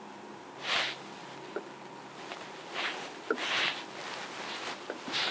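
A man's short, hissing breaths through the nose, four of them a second or two apart, with a few faint clicks in between.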